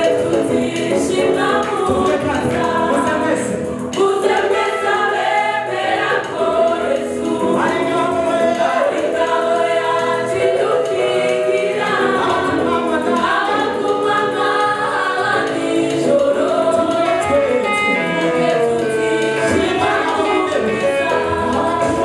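Church choir singing a gospel worship song, several voices together without a break.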